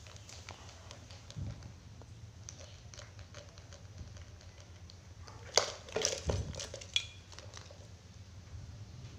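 Hard plastic toys knocking and clattering on a tiled floor as a toddler handles them: scattered light clicks, then a cluster of sharper, louder clacks a little past halfway.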